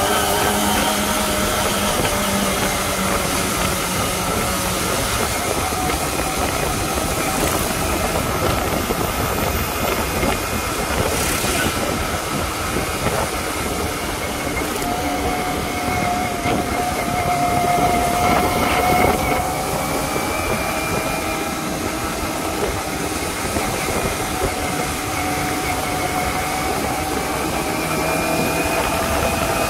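Kawasaki Ninja ZX-25R's 250 cc inline-four engine running while riding at a steady pace, its pitch drifting a little up and down with the throttle, under constant wind rush over the microphone.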